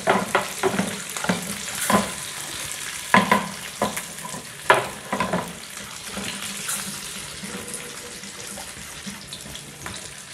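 Wire whisk stirring milk sauce (béchamel) in a metal saucepan: irregular clicks and scrapes of the whisk against the pot over the slosh of the liquid. The strokes come busily at first and thin out after about halfway.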